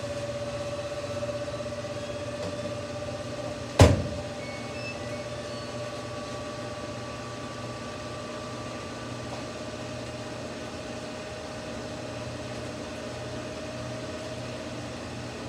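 Samsung front-load washing machine running during a rinse: a steady motor hum with a whine that slowly rises in pitch, and a single sharp knock about four seconds in.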